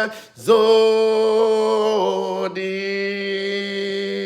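A man singing long, held notes in a worship chant. He takes a short breath just after the start, and the pitch steps down about two seconds in.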